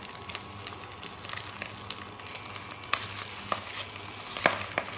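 Beaten egg with chopped fish cake sizzling in hot oil in a stainless steel pot as it is stirred with a spatula. A few sharp clicks of the spatula knocking against the pot, the loudest about four and a half seconds in.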